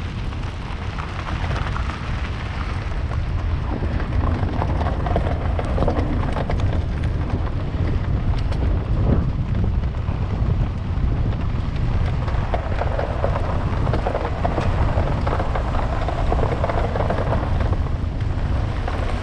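Van on the move: steady road and wind rumble, heaviest in the low end.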